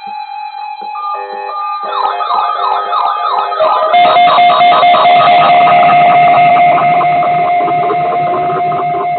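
Siren sounds mixed with music: from about two seconds in, a siren sweeps quickly up and down in pitch, about two sweeps a second; from about four seconds in, a much louder steady siren tone runs over the music.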